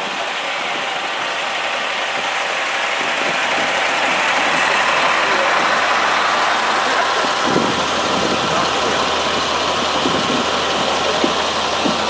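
Blue Bird school bus engine idling: a steady, even running noise, a little louder in the middle, with a low hum joining about halfway through.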